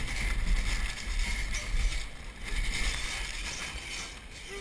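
A hot-air balloon's wicker basket touching down on grass: a low rumble with scraping and rustling noise that rises and falls.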